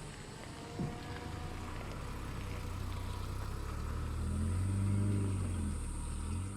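Vehicle engine running as a steady low rumble, growing louder about four to five seconds in, then easing off.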